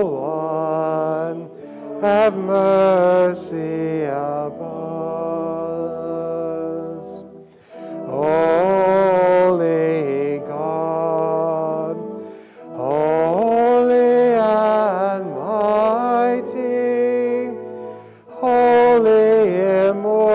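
Sung liturgical chant of church service music, in long phrases of about four to five seconds with brief breaks between them.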